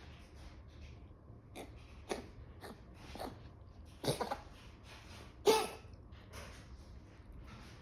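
A pet animal coughing: a string of short separate coughs about every half second, with a harder burst about four seconds in and the loudest cough about five and a half seconds in.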